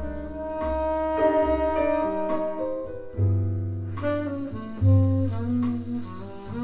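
Jazz quartet music played through Bowers & Wilkins 706 S3 speakers: a tenor saxophone plays held melody notes over piano, double bass and light cymbal strikes.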